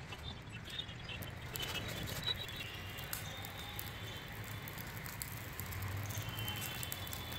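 Pile of dry leaves burning, crackling with many small sharp pops that set in about a second and a half in.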